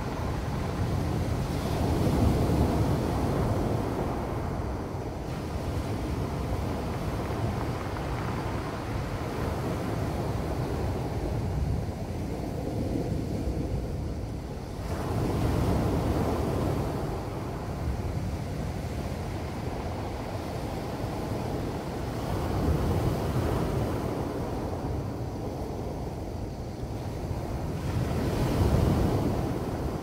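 Sea waves at high tide breaking on a cobble beach and washing up over the rounded stones. The surf rises and falls in slow surges, loudest about two seconds in, around the middle and again near the end.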